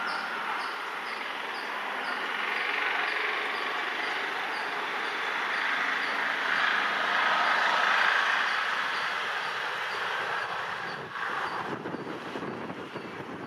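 WAG-5 electric locomotive approaching from a distance with its train: a steady hiss of its running that swells about halfway through and then eases, with a lower rumble coming in near the end.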